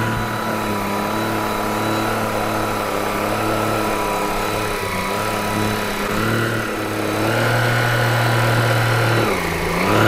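Greenote GSC50 cordless stick vacuum cleaner running over carpet. Its motor pitch dips and comes back up several times, most deeply near the end, as the vacuum automatically slows on the backward strokes and powers up on the forward ones.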